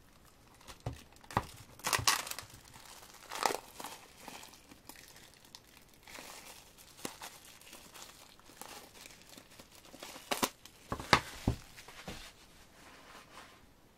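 Plastic shrink wrap on a CD album crinkling and tearing as it is handled and pulled off. It comes in irregular sharp rustles with quieter crackling between, the loudest about eleven seconds in.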